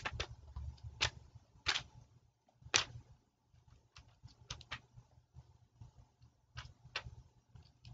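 Faint, irregular clicks and taps at a computer, about a dozen spread unevenly, over a low steady room hum.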